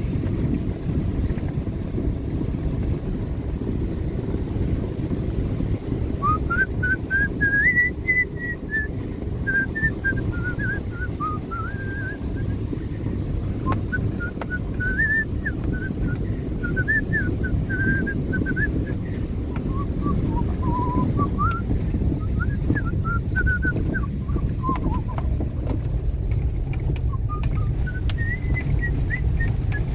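Vehicle moving along a rural road, a steady low rumble of engine, tyres and wind. From about six seconds in, someone whistles a wandering tune over it in several phrases.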